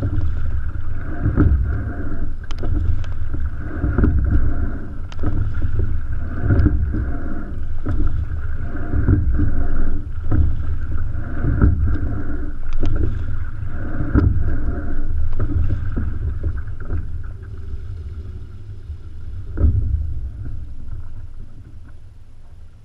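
Single racing scull being rowed: regular knocks from the oars and oarlocks, about one every second and a quarter, over a steady low rumble from the moving boat. About 17 seconds in the knocks stop and the sound fades away.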